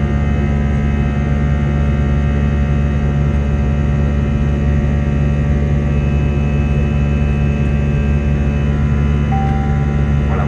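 Steady in-flight cabin noise of an Airbus A320: a constant low drone of the engines and rushing air, with several steady hums in it. A short faint single tone sounds about nine seconds in.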